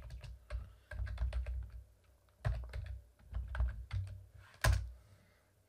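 Typing on a computer keyboard: two quick runs of keystrokes with a short pause between them, then a single harder keystroke near the end.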